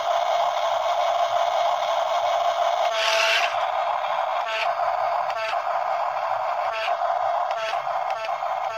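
Small electric gear motor of a remote-control toy construction vehicle running with a steady whine, with a short raspy rattle about once a second from about three seconds in.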